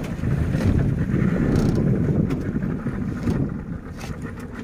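Wind buffeting the microphone aboard a small motorboat running in toward the shore, a dense low rumble that eases off near the end as the boat slows.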